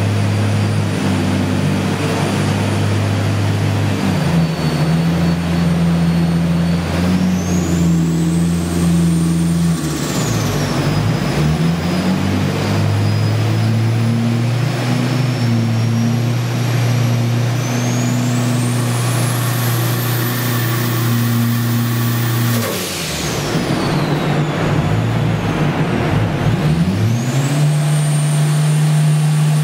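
Forged 4A-GE four-cylinder with a Garrett GTX2860R turbo running under load on a hub dyno during tuning. The engine note holds steady while a high turbo whistle climbs steeply, twice, then drops away as the engine note dips and recovers.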